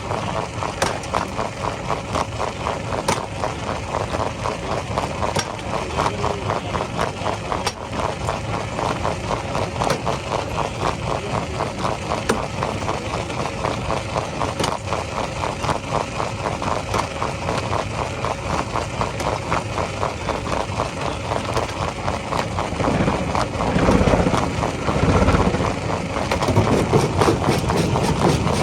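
Heavy rock-crushing machinery running steadily on its engine, with a fast mechanical pulse and a sharp knock about every two seconds. A deeper, louder rumble swells in near the end.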